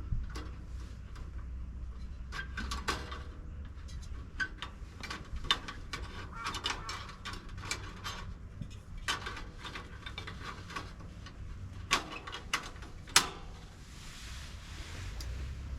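Irregular clicks, knocks and clatter of camping gear being handled and put together, with a sharper knock about twelve and thirteen seconds in.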